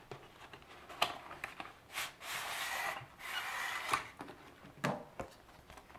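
Cardboard engraving-kit package being opened: boards and paper slide out of the box, with two long rubbing scrapes near the middle and a few light knocks and taps.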